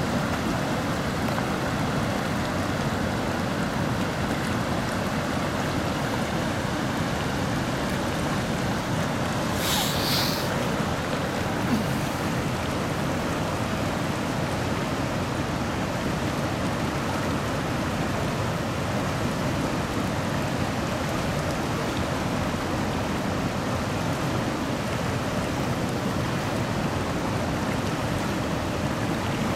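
River rapids rushing steadily around the waders, with a brief high hiss about a third of the way through.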